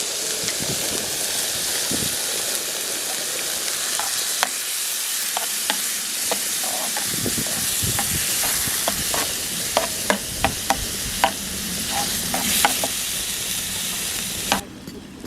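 Food sizzling as it fries in a pan over a campfire, a steady hiss. A utensil stirring clicks and taps against the pan, more often in the second half, and the sizzle cuts off suddenly near the end.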